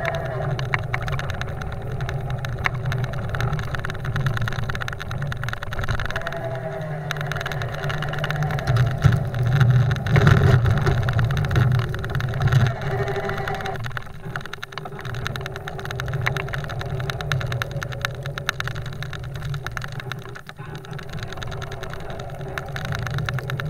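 Golf cart's motor running steadily as it pushes a plow blade through snow, with the blade scraping over the pavement. It gets louder for a few seconds about a third of the way in.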